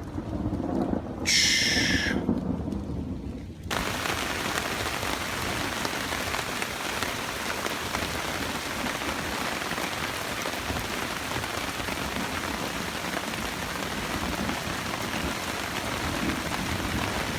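Thunderstorm: thunder rumbling, with a loud burst about a second in. A few seconds in the sound changes abruptly to heavy, steady rain pouring down.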